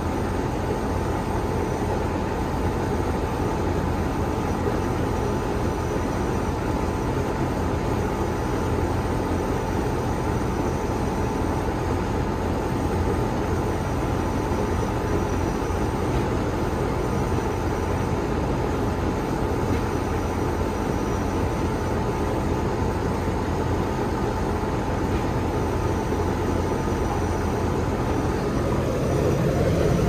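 Outdoor condensing unit of a residential central air conditioner running, its condenser fan and compressor giving a steady whir and hum while the system is being charged with R-410A refrigerant.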